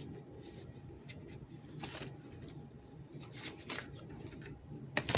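Faint handling noises of iPad box contents and packaging: a few light clicks and rustles over a low steady room hum.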